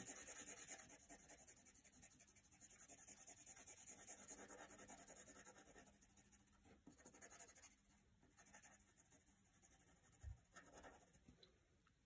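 Faint scratching of a gray Prang Rendering colored pencil lightly shading on paper in small strokes, fading out about six seconds in, with a single soft knock near the end.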